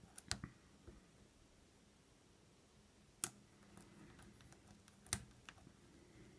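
Faint, sparse clicks of a lock pick and tension wrench working the pins of a Master Lock bike lock. The clearest come near the start, about three seconds in and about five seconds in. The picker finds these clicks give no consistent feedback.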